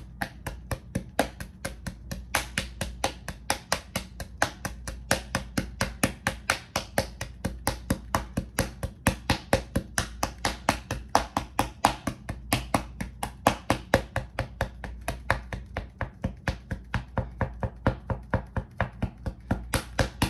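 Background music with a steady clicking beat, about four beats a second, over a low bass line.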